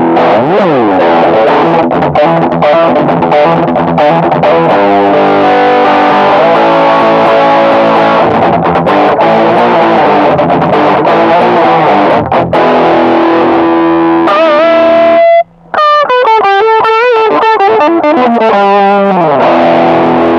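Electric guitar played through a Caline High Peak high-gain distortion pedal: sustained distorted chords and riffs with a sliding drop just after the start, a brief stop about fifteen seconds in, then a lead phrase with string bends and vibrato before the chords return.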